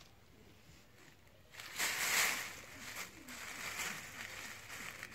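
Dry fallen leaves rustling and crunching as a kitten pounces and scrambles through a leaf pile. There is a loud burst about two seconds in, then lighter, patchy rustling.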